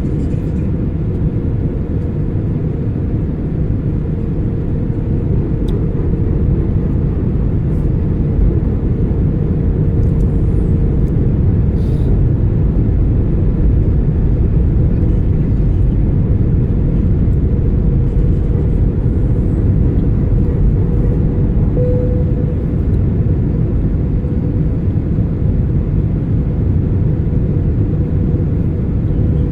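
Airbus A320 cabin noise in flight: a steady, loud low rush of engines and airflow with a steady hum running through it.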